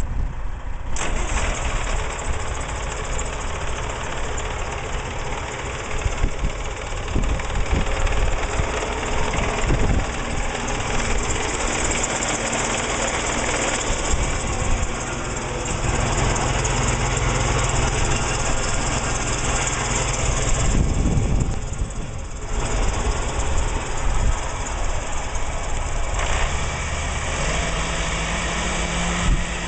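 Allis-Chalmers G's small rear-mounted four-cylinder Continental gasoline engine running steadily, with a brief dip about three-quarters of the way through and the engine note rising near the end as the tractor moves off.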